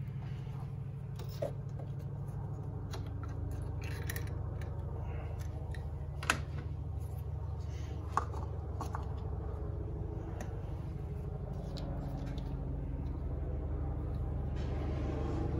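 Radiator cap twisted off and a plastic funnel fitted into the radiator filler neck: a few scattered sharp clicks and knocks, over a steady low hum.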